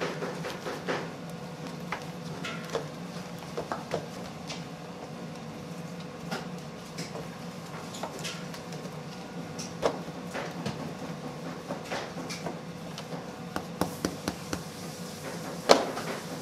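Gloved hands rolling and shaping filled bagel dough on a wooden board: scattered soft taps and knocks, with a sharper knock about a second before the end, over a steady background hum.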